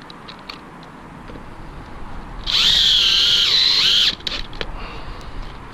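Power drill running once for about a second and a half, its motor whine dipping in pitch under load as it drives a fastener into the roof framing. A few light clicks and knocks before and after.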